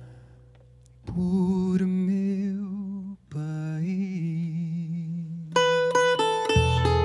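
Male voice singing long, wordless held notes with vibrato in two phrases, with a brief break about three seconds in. Near the end, sharply plucked guitar notes come in, with a low bass note beneath them.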